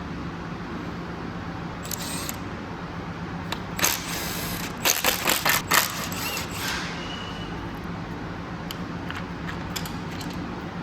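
Metal tools and engine parts clicking and clattering, a cluster of sharp knocks about four to six seconds in and a few lighter ticks elsewhere, over a steady background hum.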